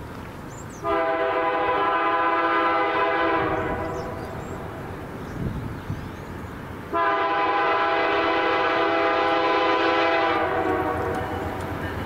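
Air horn of the Canadian Pacific lead diesel locomotive sounding two long, steady multi-tone blasts, the second starting about three seconds after the first ends, over the low rumble of the approaching train.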